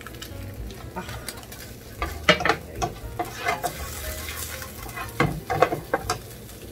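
Butter sizzling in a hot frying pan while a utensil stirs and scrapes the pan, with clusters of sharper scrapes and knocks about two seconds in and again about five seconds in.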